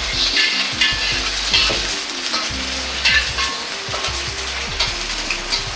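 An egg frying in oil in a wok over a gas burner, sizzling steadily. A metal utensil scrapes and knocks against the wok several times.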